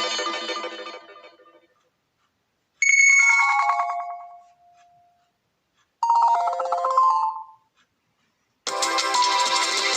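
HTC One M8 ringtones played one after another: the tail of one tune fading out, then two short chime melodies about three seconds apart, the first stepping down in pitch, then a fuller tune starting near the end.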